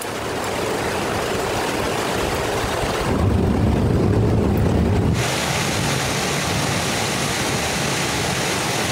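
Strong wind and heavy rain heard through a phone's microphone as a steady rushing noise. For about two seconds near the middle, wind buffeting on the microphone turns into a heavy low rumble, then the even rushing returns.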